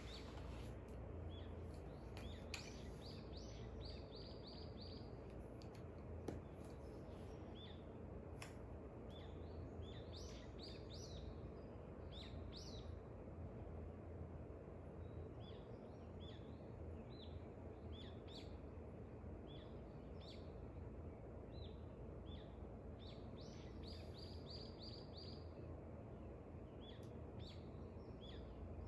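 Birds chirping at dawn: short runs of quick, high chirps come and go over a steady low background noise.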